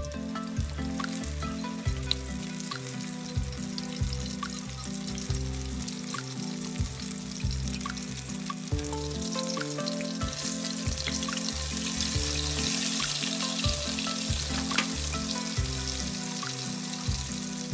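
Flour-coated chicken frying in hot oil, a steady sizzle that grows louder in the second half, over background music with a repeating bass line.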